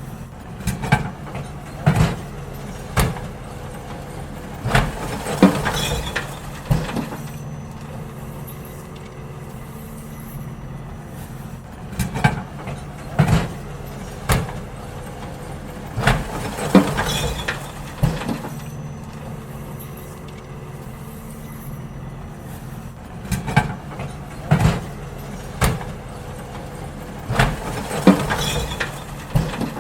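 Garbage truck engine running steadily while bins are emptied, with clusters of sharp knocks and bangs every five or six seconds as the bins are tipped and shaken out.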